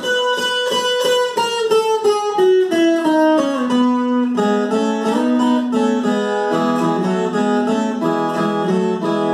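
Ten-string viola caipira, its five pairs of steel strings fingerpicked solo in a quick run of plucked notes. The melody steps down over the first few seconds, then settles into a repeated plucked figure.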